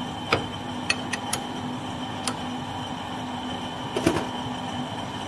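Steady workshop hum with a few light metallic clicks and taps, scattered through the first half and a double click about four seconds in, as a chamfering tool is handled on the toolpost of a stopped metal lathe.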